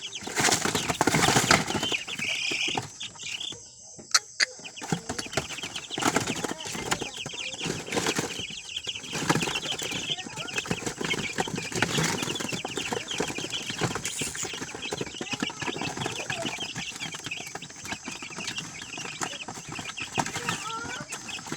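Native chickens clucking, a busy, irregular run of short calls that is loudest in the first couple of seconds.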